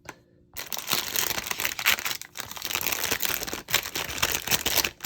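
Plastic kit packaging crinkling and rustling as it is handled and opened, a dense crackle of small crinkles that starts about half a second in.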